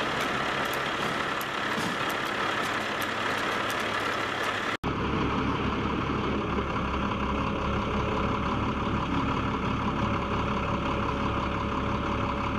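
Heavy military wrecker truck's diesel engine idling steadily, with a few faint clicks in the first few seconds. The engine sound changes abruptly about five seconds in.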